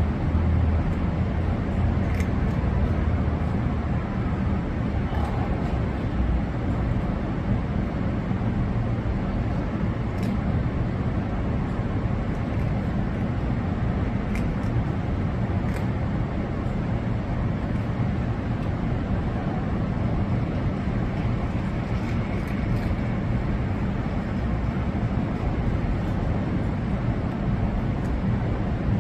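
Steady low rumble of outdoor background noise, like traffic or machinery, with a few faint ticks.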